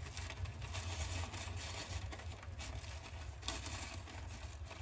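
Soft rustling of a thin paper napkin as its plies are peeled apart by hand, over a steady low hum.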